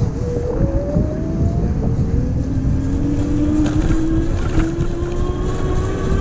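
E-bike rear hub motor whining under throttle, its pitch rising steadily as the bike gathers speed; the whine climbs once briefly, then again for the rest of the stretch. Heavy wind and tyre rush sit underneath.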